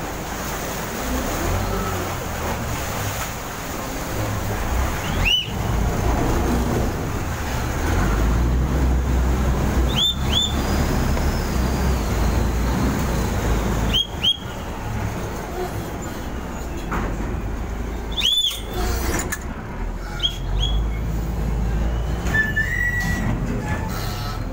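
Short, high whistle blasts, mostly in pairs, every few seconds over the steady low rumble of a Chao Phraya Express Boat's engine and churning water as it docks. These are the kind of whistle signals the boat's crew use to direct the helmsman at a pier.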